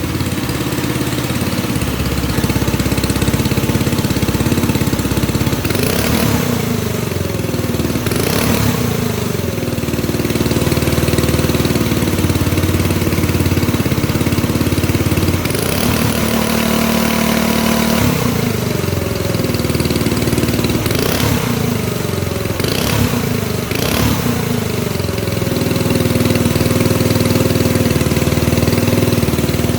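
A hand-built radio-controlled Cat D11 bulldozer model running. A steady mechanical drone with a few quick rises and falls in pitch, in bunches about six seconds in and again past twenty seconds, as it changes speed.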